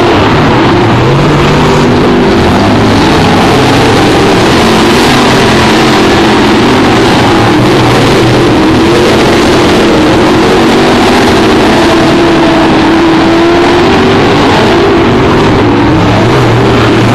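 Several limited late model dirt-track race cars' V8 engines running hard at racing speed. Many loud engine notes overlap, each rising and falling in pitch as the cars pass through the turns.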